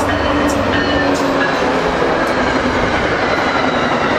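Passenger train hauled by a diesel locomotive passing close by at speed: a loud, steady rush of locomotive and coach wheels running on the rails.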